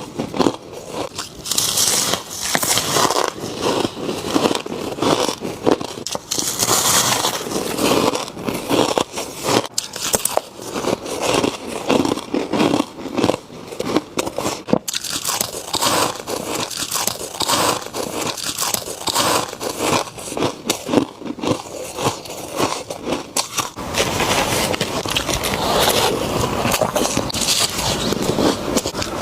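Freezer frost being bitten and chewed close to the microphone: dense, irregular crunching and crackling of ice crystals. Near the end the crunching turns more even and fuller.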